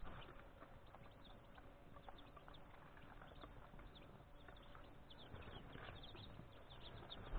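A brood of young domestic chicks peeping faintly: many short, high peeps overlapping several times a second, with light ticks from pecking and scratching in wood shavings.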